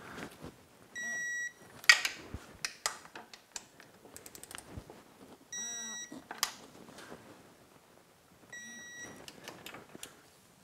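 Electronic torque wrench beeping three times, about half a second each, as each outboard lower-unit bolt reaches its set torque of 29 foot-pounds. Between the beeps come quick ratchet clicks and knocks from the wrench on the bolts, with a sharp click just after the first beep.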